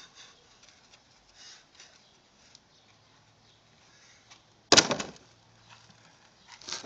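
Handling noise on the recording phone: faint scattered clicks and rustles, one loud sharp knock about two-thirds in, and a smaller burst of rubbing and knocking near the end as a hand reaches to the phone.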